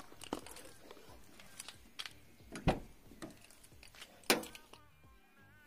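Car door and cabin handling: a series of knocks and clicks as the door is opened and someone climbs in. The loudest thud comes about two and a half seconds in, with another sharp knock a little after four seconds.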